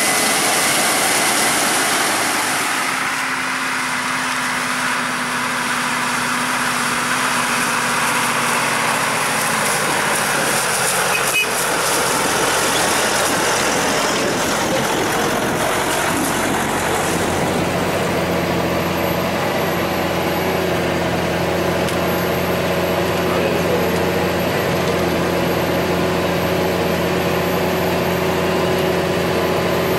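Heavy diesel farm machinery running steadily. A tone falls in pitch over the first several seconds, and from about two-thirds of the way through the engine settles into a new steady note.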